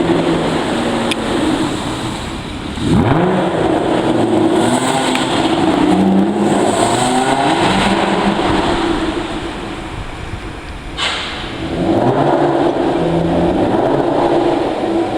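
Aston Martin DBS V12 engine revving loudly: a sharp rise in revs about three seconds in, held high and shifting for several seconds, then dropping. A short sharp crack comes near eleven seconds, and the revs climb again.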